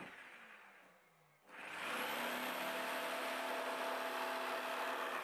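A jigsaw cutting through plywood. Its motor dies away in the first second, and after a brief pause it starts again about a second and a half in and then runs steadily.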